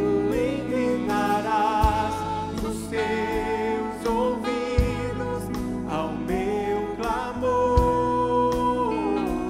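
Portuguese-language contemporary worship song: a solo voice sings a bending melody over a band with bass and drums, holding one long note near the end.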